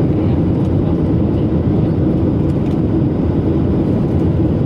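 Steady, low-pitched noise of jet engines and rushing air heard inside an airliner's cabin while the plane descends on approach.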